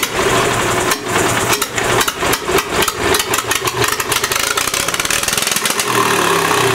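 Two-cylinder Wisconsin THD engine running away with its throttle control off: a fast, ragged string of sharp exhaust bangs that crowd closer together, settling into a steady high-speed drone about six seconds in.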